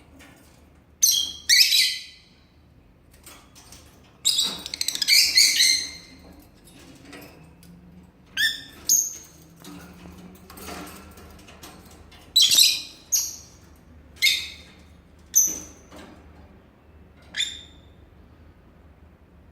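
Lovebird giving short, high-pitched chirps and squawks at irregular intervals, with a longer run of chattering about four seconds in.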